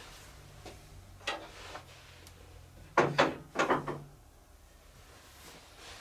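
A few sharp knocks and clunks over a low hum: one just after a second in, then a cluster of four about three to four seconds in, the loudest sounds here. The hum fades out about four seconds in.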